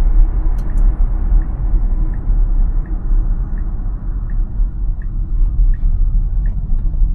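Tesla cabin on the move: steady low tyre and road rumble, with the turn signal ticking evenly about once every 0.7 seconds as the car makes a turn.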